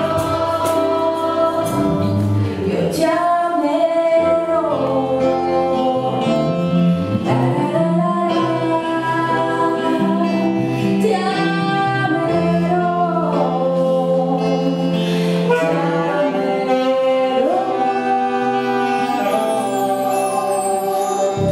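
Live band playing a slow song: a woman singing, with saxophone, acoustic guitar and keyboard accompaniment.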